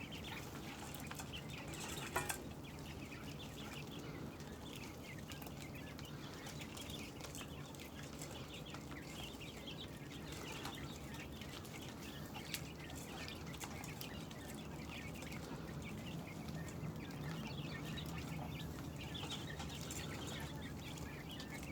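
A flock of quail chirping and peeping continuously in short, dense calls, over a steady low hum, with a sharp click about two seconds in and another about halfway through.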